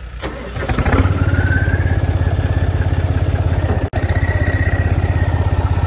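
John Deere tractor's diesel engine running, picking up and getting louder about a second in as the tractor pulls away, with a steady pulsing rumble. A high whine climbs in pitch over the next second or so and then holds steady.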